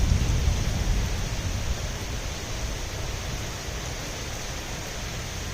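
Steady rain falling, heard through an open window, with a low rumble that fades out over the first two seconds.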